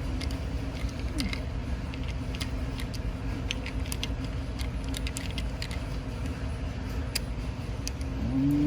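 Small scattered clicks and ticks of a screwdriver and hand tools tightening the wire terminal screws on a gear shifter switch, over a steady low hum.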